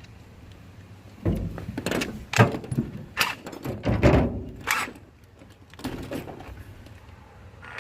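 A series of heavy metal clunks and knocks, about seven over four or five seconds, some with a short ring: engine parts and tools being handled and set down during an engine teardown.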